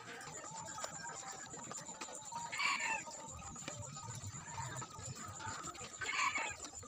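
Chickens clucking: two short calls, about two and a half seconds in and again near the end, over a faint steady high-pitched tone.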